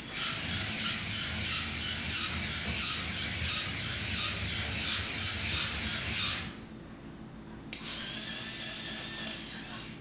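Small electric motor and gears of a remote-control toy skunk whirring in a long run of about six and a half seconds, then, after a short pause, again for about two seconds.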